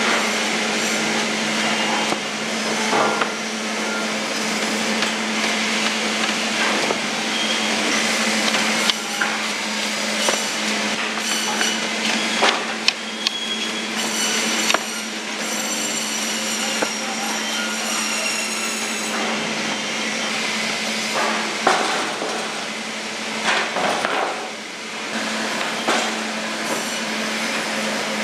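Machinery noise in a frozen-tuna processing plant: a steady machine hum under repeated knocks and clatter of hard objects, with a high whine for a few seconds about halfway through.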